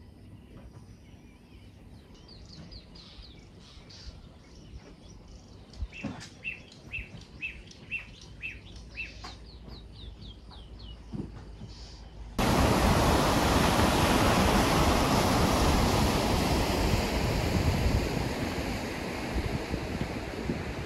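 Birds calling over a quiet background, including a run of short repeated chirps, about two a second. About twelve seconds in, the sound cuts abruptly to a loud, steady rushing noise.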